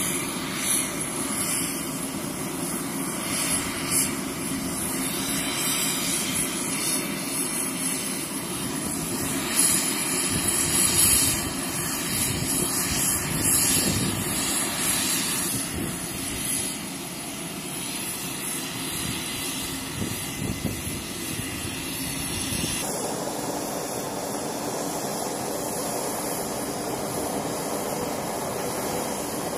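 Jet engines running steadily: a constant rush with a thin high whine on top. Near the end the rush shifts in tone, more of it in the middle range.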